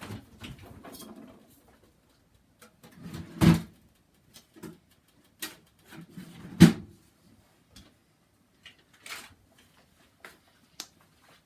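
Things being handled and set down: two sharp knocks about three seconds apart, among scattered light clicks and a brief rustle at the start.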